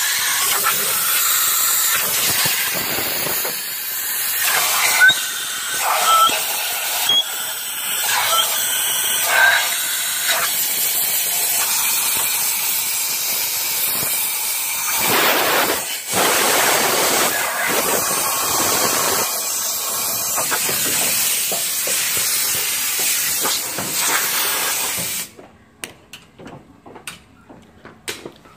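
Compressed air hissing as it blows water out of the head bolt holes in a Chevy 5.3 LS engine block. The hiss runs loud with brief dips and a few sharper spurts, then cuts off suddenly near the end, leaving a few faint clicks.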